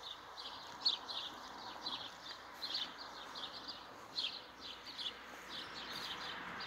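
Small birds chirping steadily in short, high, quickly repeated calls, several a second, over a faint outdoor hiss.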